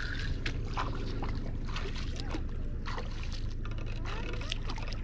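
Light splashing of someone wading through shallow water, with scattered small clicks over a steady low rumble.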